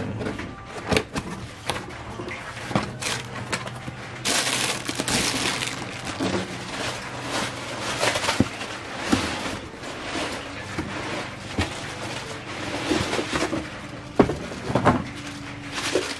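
Cardboard packaging being opened and handled: scraping, rustling and crumpling of cardboard, with a few sharp knocks as the boxes are set down.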